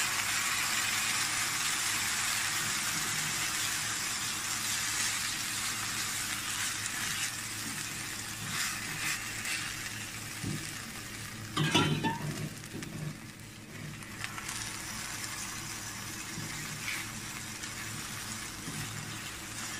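Milk-and-sugar mixture sizzling as it is poured onto bread crumbs fried in ghee in a hot pan, while a silicone spatula stirs the crumbs. The sizzle fades slowly as the flame is on low, with a brief louder knock about twelve seconds in.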